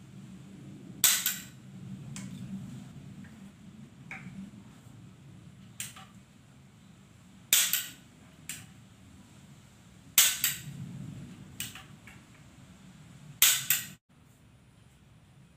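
Tranquilizer-dart blowpipe blown four times, each a sharp puff of air that fades within about half a second, with a few fainter clicks between them.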